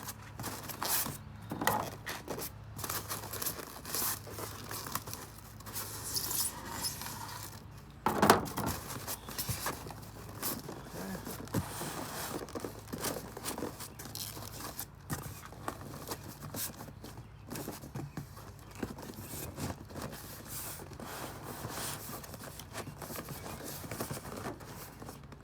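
Cardboard shipping box being cut down its sides and its flaps folded over the styrofoam packing: a run of scraping, rustling and crinkling, with a sharp knock about eight seconds in.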